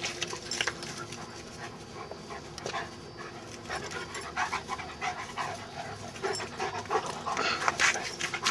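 Dogs playing close up: one panting hard, with short scuffles and rustles of paws and bodies on grass.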